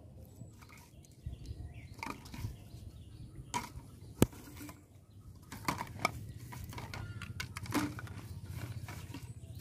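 Plastic bottles being handled, knocking and crinkling as they are gathered into a plastic basket, with one sharp click about four seconds in and scattered softer knocks after it.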